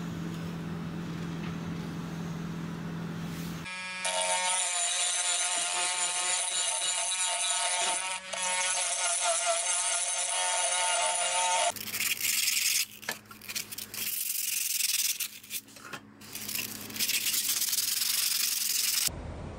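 A small cordless rotary tool whining at a steady high pitch as it grinds rust off the toy Jeep's rusty steel, starting about four seconds in. About twelve seconds in it stops, and sandpaper is rubbed by hand over the rusty steel in strokes with short pauses between them.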